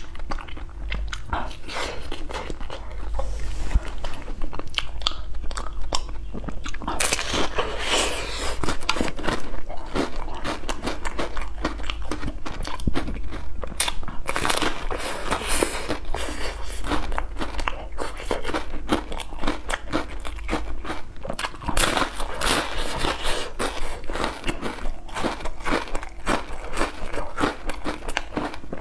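Close-miked eating of an ice cream cone: biting and chewing, with irregular crunching of the waffle cone, busier from about a quarter of the way in.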